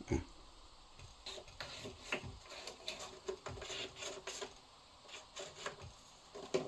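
Scattered, irregular clicks and taps, with a short thump at the start: buttons and controls on a Yamaha MD8 MiniDisc multitrack recorder being pressed and handled.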